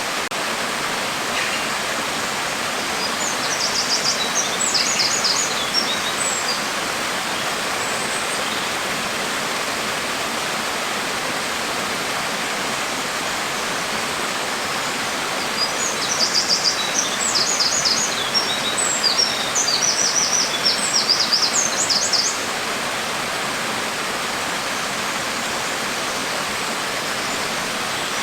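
Steady rain falling, an even hiss throughout. A bird chirps in quick high runs twice over it, briefly a few seconds in and for several seconds in the middle.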